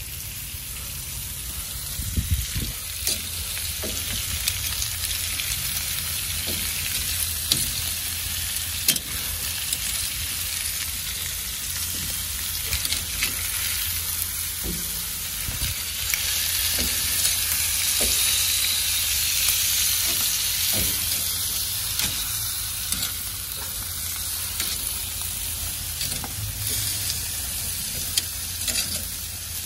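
Chicken and ribs sizzling on the hot grate of a large charcoal grill: a steady hiss with scattered crackles and pops.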